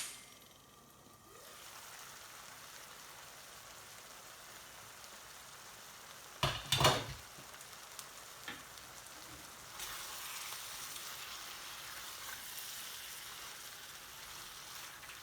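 Chicken curry sizzling in a pan, a steady hiss that grows louder about ten seconds in. A sharp metal clank comes right at the start, and a pair of knocks about six and a half seconds in.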